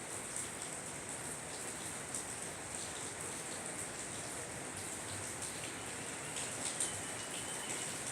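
Steady rain, an even hiss with faint scattered ticks.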